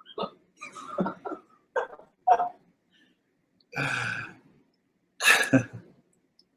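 A man laughing in short breathy bursts and chuckles, with two longer airy exhales of laughter about four and five and a half seconds in.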